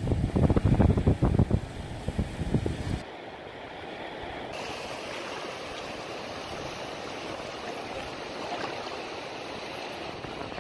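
Wind buffeting the microphone in heavy gusts for about the first three seconds. Then, after an abrupt change, a steady wash of shallow surf.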